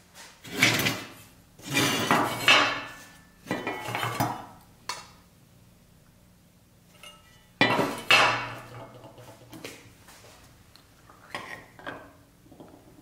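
Pressed-steel toy car parts clattering and scraping against each other and the work surface as they are handled and set down, in several separate bursts with a quiet stretch in the middle.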